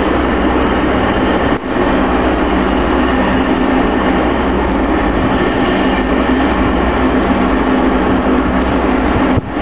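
A steady mechanical drone with a constant hum and low rumble underneath, dipping briefly twice, about one and a half seconds in and again near the end.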